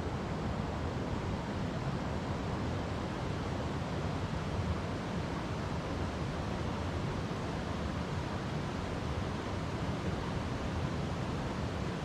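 River water flowing over rocks: a steady, even rush that neither rises nor breaks.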